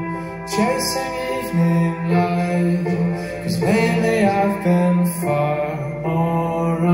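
Live band playing a slow song with electric guitar, keyboards and drums, a held low note underneath, and a voice singing.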